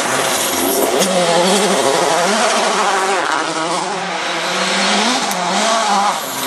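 Citroën C4 WRC rally car driven flat out on gravel: its engine revs climb and drop again and again through quick gear changes, over a hiss of tyres and loose gravel.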